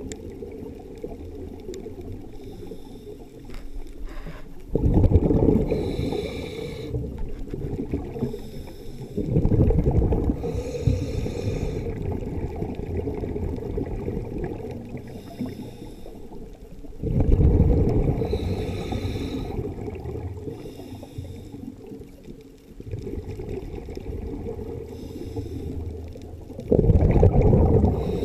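Scuba diver breathing through a regulator underwater: exhaled bubbles rumble out in four surges several seconds apart, each fading away, over steady underwater noise.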